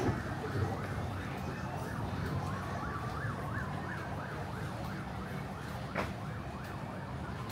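Emergency vehicle siren in a fast yelp, about three rising-and-falling sweeps a second, with a slower wailing tone under it; the yelp fades after a few seconds. A single sharp click about six seconds in.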